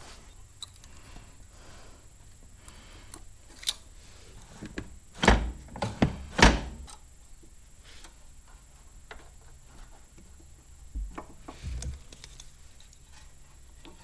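Hand work on a Predator 420 cc engine's carburetor and throttle linkage, with the engine off: scattered light metal clicks as parts are handled. Three heavy knocks come close together about halfway through, and a couple of smaller ones near the end.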